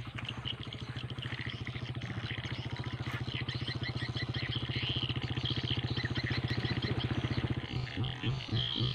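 A small motorcycle engine runs past, getting steadily louder for about seven and a half seconds before it fades out. Frogs then croak about twice a second near the end, with insects or frogs chirping faintly throughout.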